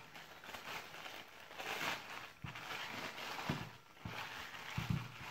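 Clear plastic bag rustling and crinkling in bursts as a desoldering vacuum pump is unwrapped by hand, with a few soft thumps as the tool is handled.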